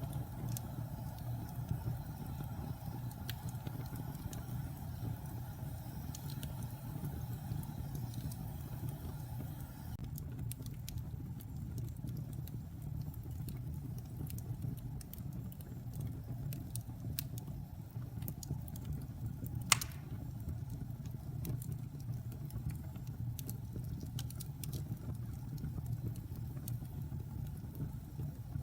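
Fire burning with a steady low rumble and scattered crackles, and one louder sharp pop about two-thirds of the way through.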